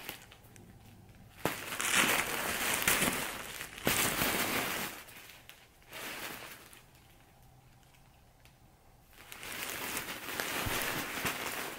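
Clear plastic bag around a pillow crinkling and crackling as the pillow is handled and turned, in two long stretches with a quiet pause between them.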